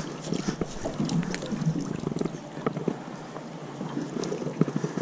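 Wet cast net being emptied of shad into a bait bucket, then gathered up with its hand line: scattered small knocks, splashes and rustles, with some wind on the microphone.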